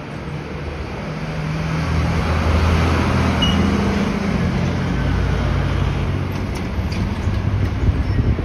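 A motor vehicle's engine running close by over traffic noise, growing louder over the first two seconds and then holding steady.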